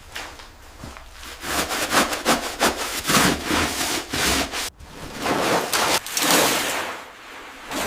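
Repeated back-and-forth rubbing strokes, a few a second, in uneven runs, with a short break a little past the middle.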